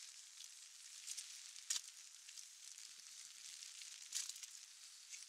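Steady hiss of rain, with a few sharp taps standing out, the clearest about a second and a half and about four seconds in.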